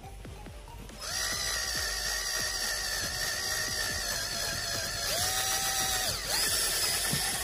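Electric drill boring a hole in the wood of an antique vanity. It starts suddenly about a second in and runs steadily, its pitch dipping briefly twice past the middle as the bit loads up.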